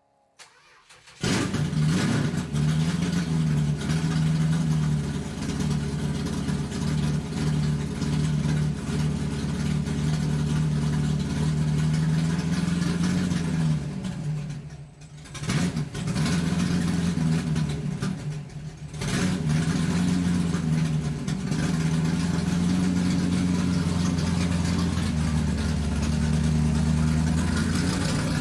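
A vehicle motor running loudly, cutting in suddenly about a second in. Its pitch swells and sags a few times, and it dips briefly twice around the middle before running on steadily.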